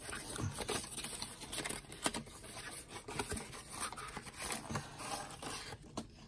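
Lorcana starter-deck cardboard box being opened by hand and its inner deck box slid out: soft rustling and scraping of cardboard with a few light taps.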